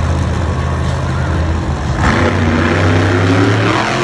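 Monster truck's supercharged V8 engine running loud, revving harder about two seconds in as the truck climbs a dirt mound onto its rear wheels.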